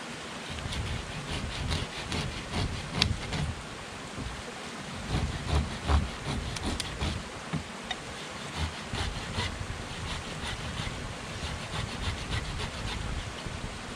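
Hand saw cutting the tops of upright wooden stakes in a stick wall, in uneven back-and-forth strokes with short pauses.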